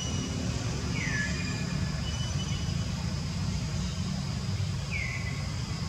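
Outdoor ambience: a steady low rumble, with two short falling whistled calls, one about a second in and one near the end.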